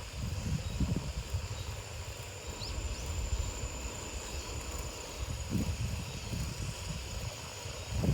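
Wind buffeting the microphone in an uneven low rumble, with a steady high-pitched insect call behind it and a few faint chirps.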